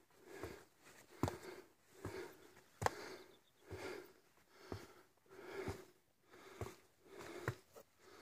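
A hiker breathing hard, about one breath a second, with sharp footstep clicks on the rocky trail between the breaths: the panting of effort on a steep uphill climb.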